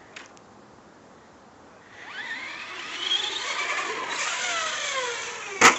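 Traxxas 4x4 electric RC truck accelerating at a dirt jump: its motor and gear drive whine, rising in pitch as it speeds up and then sliding down. A sharp knock comes near the end.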